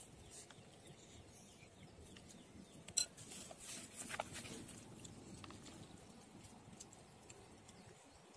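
Faint clinks and scrapes of a metal spoon against a glass serving bowl, with one sharp click about three seconds in.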